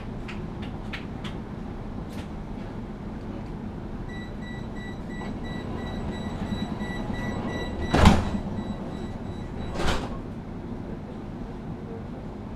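A tram's door warning tone beeps in a rapid pulsing pattern for several seconds while the doors slide shut. Two loud knocks come about 8 s and 10 s in, the first the louder, over the tram's steady low hum.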